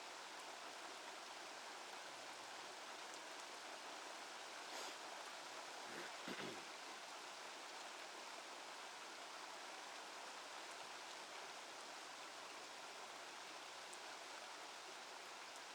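Steady, faint hiss of rain falling, with a small brief sound about six seconds in.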